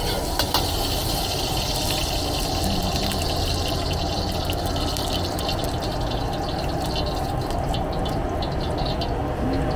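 Oil sizzling and crackling as it heats in a seasoned black steel wok, over the steady rush of a gas wok burner. A metal ladle swirls the oil and knocks against the wok about half a second in.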